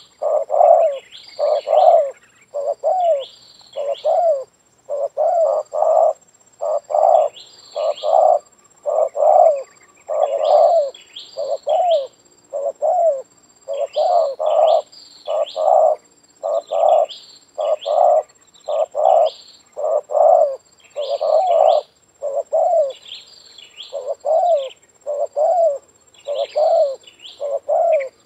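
Spotted dove (tekukur) cooing over and over in short phrases of several notes, each phrase broken off by a brief pause.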